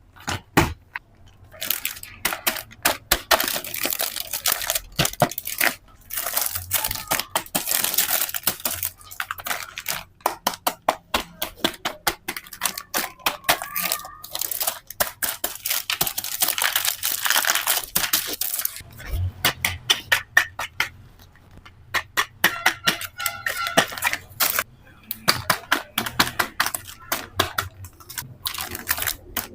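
Plastic toy kitchen pieces clicking and clacking in quick succession, with several stretches of rustling and tearing noise from handling the set.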